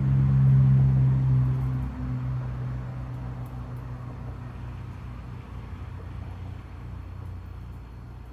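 A low engine hum, loudest in the first couple of seconds and then fading slowly.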